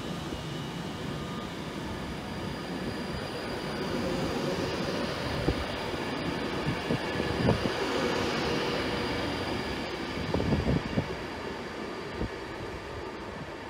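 Avanti West Coast Class 390 Pendolino electric train passing at speed: a steady rush of wheels on rail with a thin motor whine. A hiss swells and fades around the middle, and a few sharp thuds come from the wheels over rail joints between about five and eleven seconds in.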